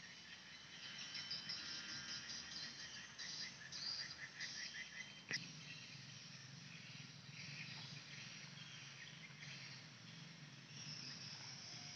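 Outdoor ambience of insects and birds chirping, with a run of rapid, rhythmic chirps between about one and five seconds in. A single sharp click a little past five seconds in.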